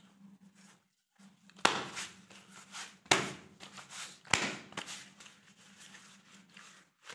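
Hands handling roti on steel plates: a few short scrapes and knocks, the clearest about one and a half, three and four and a quarter seconds in, over a steady low hum.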